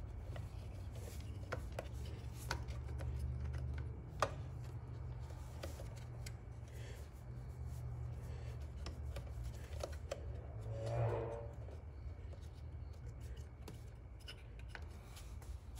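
Wires and a plastic switch housing being handled as they are pressed into place: light rubbing and scraping with a few small clicks, the sharpest about four seconds in, and a brief louder rustle about eleven seconds in. A steady low hum runs underneath.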